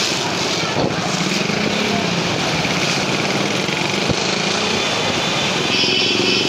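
Street traffic: motorcycle and tricycle engines running past in a steady din, with a sharp click about four seconds in and a brief high tone near the end.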